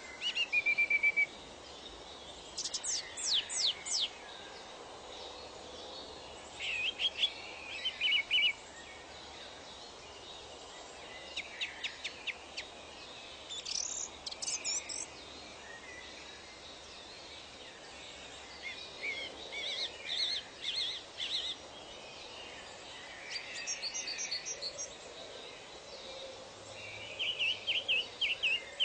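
Wild birds calling and singing in short bursts every few seconds: quick whistled notes sweeping downward, brief trills and chirps, over a steady background hiss.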